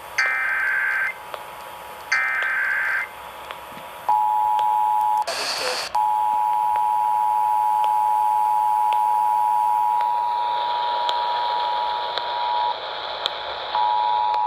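Emergency Alert System test relayed by a broadcast station. The last two of the three screeching SAME header data bursts come about a second each, a second apart. Then, about four seconds in, the steady two-tone EAS Attention Signal (853 and 960 Hz together) starts. It is broken by a brief burst of noise just after it starts, cuts off near the end and starts again.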